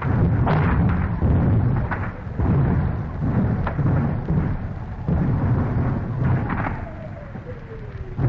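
A British artillery barrage with German mortar fire about 150 yards off: overlapping deep booms and rumbling, broken by several sharper blasts. Near the end a whistle falls steadily in pitch, like a shell or mortar bomb in flight. The sound is dull and thin at the top, typical of a 1944 wartime field recording.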